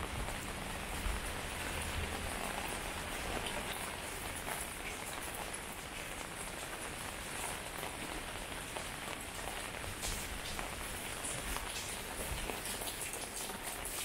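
Steady rain falling on a wet concrete lane, with many small drop ticks, more of them in the second half.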